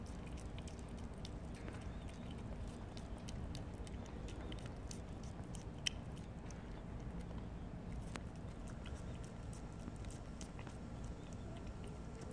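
A cat chewing and smacking wet food close to the microphone: a quick, irregular run of small wet clicks, with one sharper click about six seconds in.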